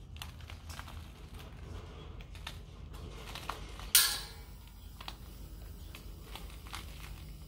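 Small clicks and scrapes of a propane tank's valve and regulator hose coupling being handled and turned by hand, with one sharp, loud burst about four seconds in that dies away within half a second.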